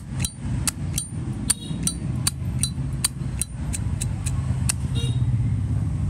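Zippo lighter's metal lid clicking open and snapping shut over and over, about a dozen sharp clinks at two or three a second that stop a little before the end, over a steady low hum.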